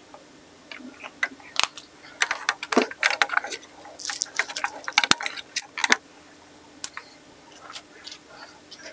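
Irregular clicks, taps and light rattles of small 3D printed plastic alignment feet being handled and fitted under the feet of a laser engraver's aluminium frame on a particleboard spoilboard, over a faint steady hum.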